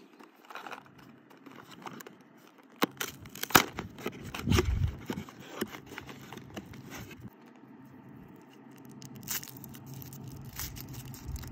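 Cardboard box of Kinder Surprise eggs being torn open, with sharp crackles and tearing of the card, then the foil wrapper of a chocolate egg crinkling as it is peeled off. A brief low rumble comes about four and a half seconds in.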